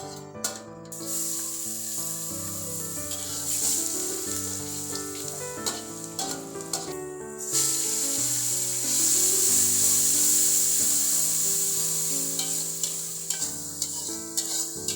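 Food sizzling as it fries in hot oil in a pan, starting about a second in, dropping out briefly near the middle, louder afterwards and fading near the end. Background music plays throughout.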